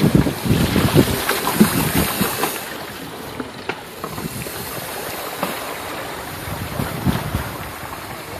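Water splashing and sloshing as the knobby tyres of a four-wheel-drive power wheelchair churn through shallow water, with wind buffeting the microphone. The splashing is louder for the first couple of seconds, then settles to a steadier wash.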